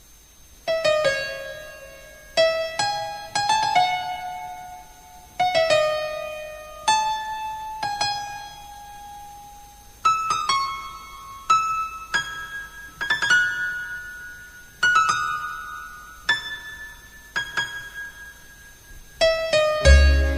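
Instrumental song intro on a piano-sounding keyboard: single notes and small chords struck about once a second, each ringing and fading away. Near the end a fuller arrangement with deep bass comes in.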